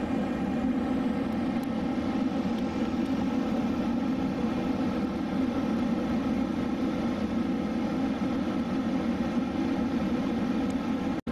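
Electric commuter train running, heard from inside the carriage: a steady rumble and hum with no change in speed that can be heard. The sound cuts out for an instant right at the end.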